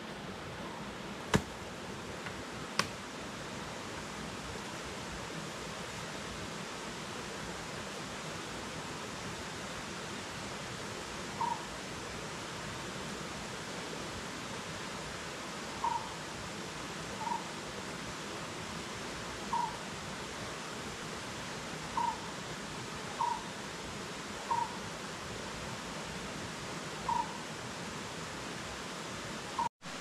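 Steady rushing of a jungle river, with two sharp clicks about a second and a half in and again a second later. From about a third of the way in, a short single-note animal call repeats about nine times, one to two and a half seconds apart.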